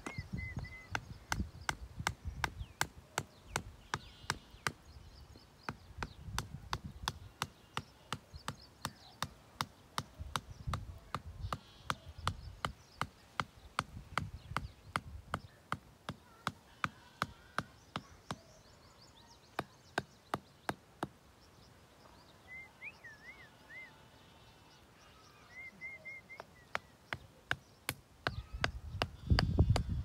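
Claw hammer striking wooden stakes to drive them into soft dirt: a steady run of sharp knocks, about three a second, that thins out for a few seconds about two-thirds of the way through.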